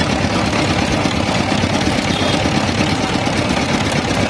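Small stationary engine running steadily with a fast, even chug, driving a sugarcane crusher's steel rollers by belt as cane stalks are fed through.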